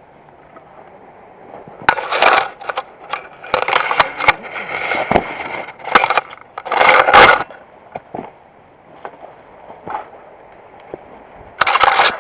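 Foliage and branches rustling and scraping against a worn camera, with footsteps crunching through dry leaves and twigs, as a person clambers up a wooded slope. The sound comes in several loud, irregular rushes with snaps in between.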